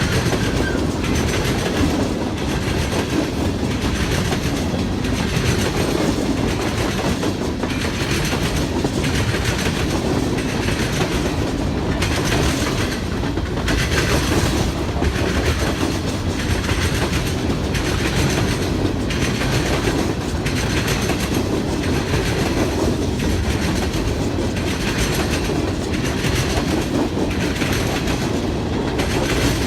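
A freight train of empty gondola cars rolling past, a continuous steady rumble with wheels clacking in an even repeating rhythm.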